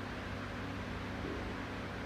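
A steady mechanical hum with hiss, even in level throughout.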